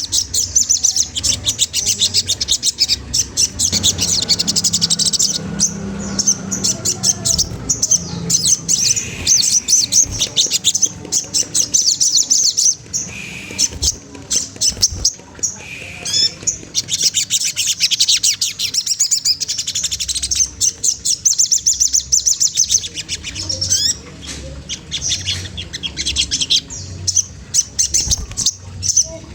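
A sogon trotol songbird calling in rapid, high-pitched chattering trills, repeated almost continuously with a few short breaks.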